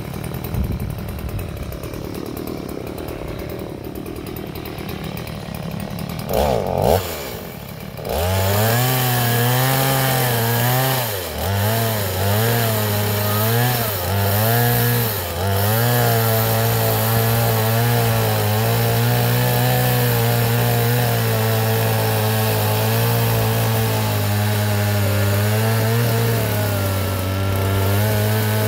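Stihl two-stroke chainsaw running quietly at first. About eight seconds in it opens up and cuts into an oil palm trunk, its engine pitch dipping and recovering several times as the chain bites, then holding a steady full-throttle cut.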